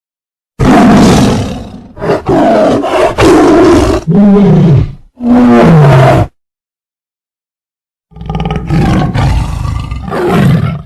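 Tiger growling and roaring: a run of loud, deep growls, the last ones falling in pitch, then a pause of about two seconds and a second, quieter run of growls.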